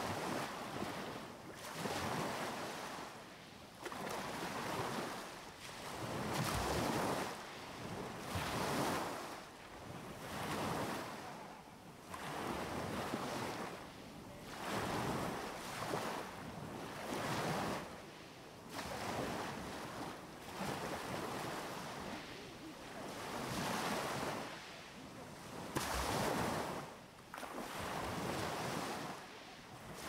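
Sea waves breaking and washing up a beach one after another, each a swelling rush of surf that fades away, about every two seconds.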